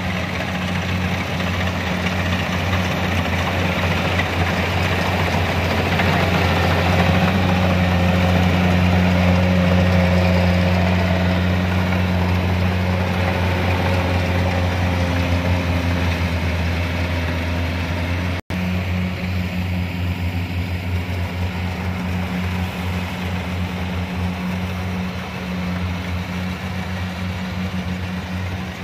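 Kubota DC-70 combine harvester's diesel engine running under load as it cuts and threshes rice, a steady drone that grows a little louder a few seconds in. The sound drops out for an instant about two-thirds of the way through.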